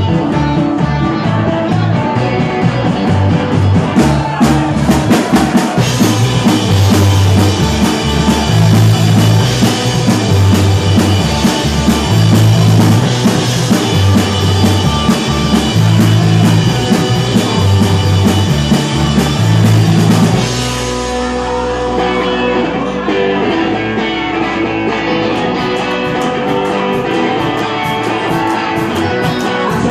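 Live rock band playing loudly: electric guitars over drums and a repeating bass riff. About twenty seconds in, the bass riff and the crashing top end drop away into a quieter, sparser passage.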